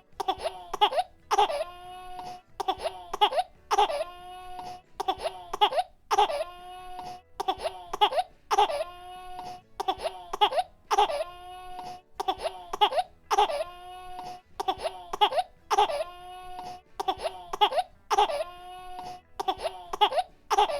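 Baby crying with short coughs. Each cough-like catch is followed by a pitched wail, and the pattern repeats evenly, about once a second.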